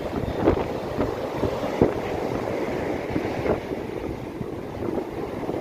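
Wind buffeting the microphone over the wash of surf breaking on the beach, with a few brief gusty bumps.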